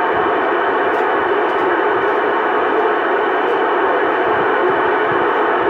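CB radio speaker putting out loud, steady static hiss with faint steady tones in it, squeezed into the narrow band of radio audio. The channel is being held by a station keying over the others.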